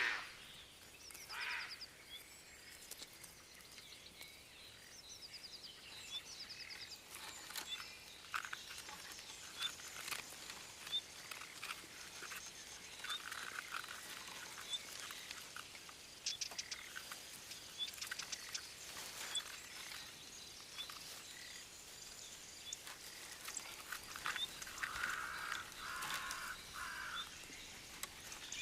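Faint woodland ambience: small birds chirping and trilling on and off, with scattered light clicks and rustles throughout.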